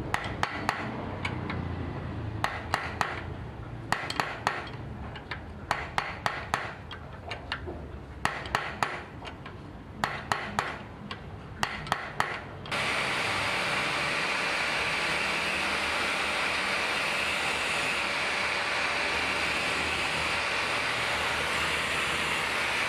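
Light hammer taps on metal in small clusters of two to four, spread over about the first half. Then a loud, steady rushing noise starts suddenly and keeps on.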